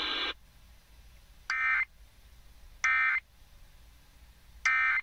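Emergency Alert System end-of-message data bursts on NOAA Weather Radio: three short, identical bursts of warbling digital tones, each about a third of a second long and spaced over a second apart, marking the end of the tornado warning broadcast. Just before them, a steady radio hiss cuts off.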